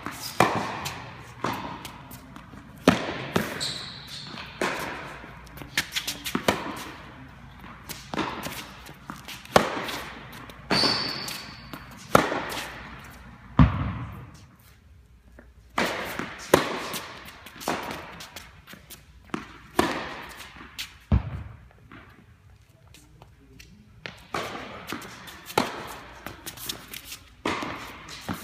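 Tennis balls being struck by rackets and bouncing on an indoor hard court during a rally. There is a string of sharp pops, one or two a second, each ringing on in the echo of a large hall.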